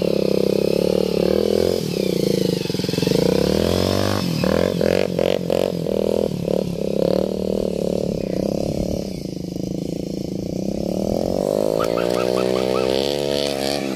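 Bajaj cruiser motorcycle engine running as a learner rides it off with a passenger, its pitch shifting up and down with the throttle. Near the end it revs up and then eases back.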